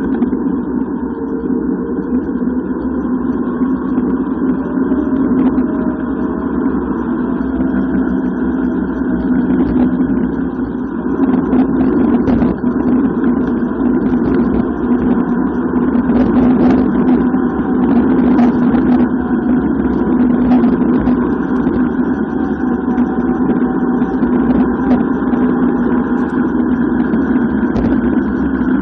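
Steady rush of wind and tyre noise on a camera during a fast downhill bicycle descent on asphalt. There are brief rattling clatters in the middle stretch.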